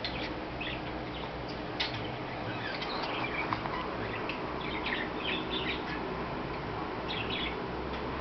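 A puppy chewing and tussling with a brush, making scattered clusters of short, high-pitched squeaks and scratches.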